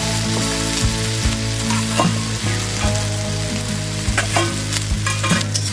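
Fried potatoes and okra sizzling in hot oil with onion and tomato in a pan while a spatula stirs them, scraping and knocking against the pan at irregular intervals.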